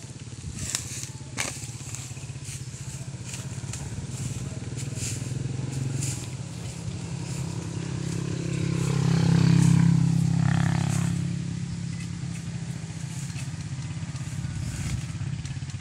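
A small engine drones steadily, swelling to its loudest about halfway through and easing off again. Over it come sharp knocks of a bolo knife chopping at the base of a bamboo shoot.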